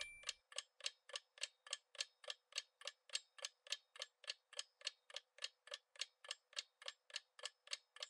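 Faint clock-like ticking of a quiz countdown-timer sound effect, steady at about three and a half ticks a second. The tail of a chime fades out in the first moment.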